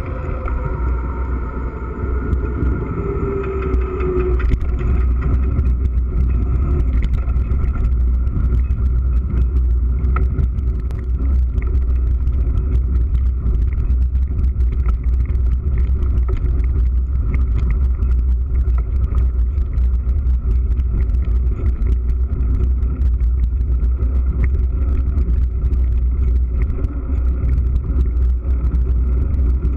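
Mountain bike riding, heard from the bike: a steady low rumble of wind and tyre noise. From about four seconds in, a constant patter of small clicks and rattles comes in as the tyres run over loose gravel.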